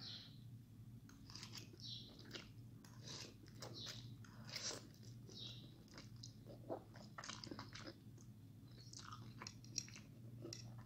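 Faint slurping of instant noodles off a fork and wet chewing, in short irregular bursts, over a steady low hum.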